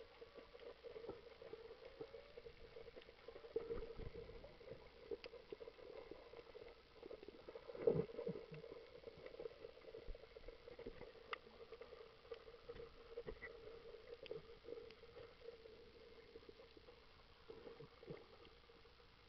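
Faint, muffled underwater sound heard by a camera held underwater while snorkelling: a steady hum with scattered small clicks and pops, and one louder knock about eight seconds in.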